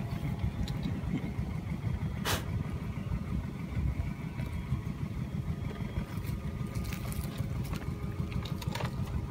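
Steady low rumble of wind buffeting the microphone, with one sharp click about two seconds in as the mesh snake trap is handled.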